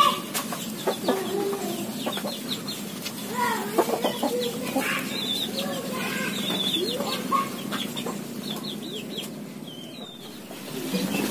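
Chickens clucking: a run of many short calls, growing quieter near the end.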